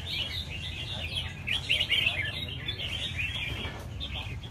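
Several caged red-whiskered bulbuls singing at once: a dense, overlapping run of quick chirping phrases, over a steady low rumble.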